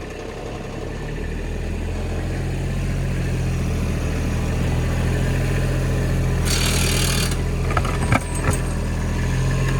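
Kubota RTV 900's three-cylinder diesel engine running steadily, growing louder over the first two seconds as the utility vehicle works with its snow plow. A brief hiss cuts in about two-thirds of the way through.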